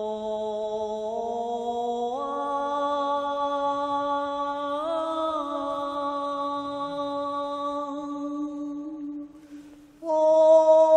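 A woman chanting in long, held sung notes in a wordless 'heavenly language' (tianyu). Her pitch steps up about two seconds in and again near five seconds. She breaks off for a breath near the end and comes back louder on a new note.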